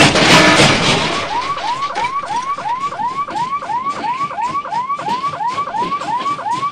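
A loud noisy sound dies away over the first second. Then an electronic siren wails in fast repeating up-and-down sweeps, about three a second.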